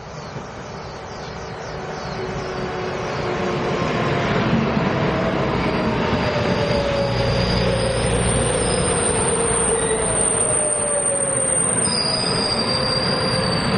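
Taiwan Railways EMU500 electric commuter train coming in, growing louder over the first few seconds, with a slowly falling whine and a high steady wheel squeal from about eight seconds in.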